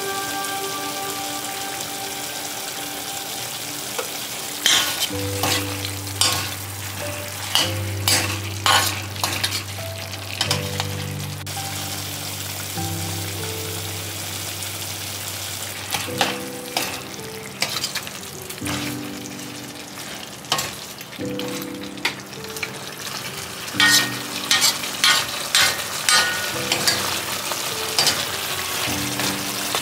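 Chicken pieces sizzling in a stainless steel kadai over a gas flame, with a metal spoon clinking and scraping against the pan in runs as the spices are stirred in.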